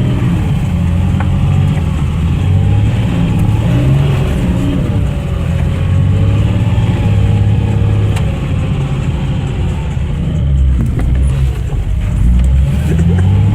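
Off-road vehicle's engine running under load, its revs rising and falling.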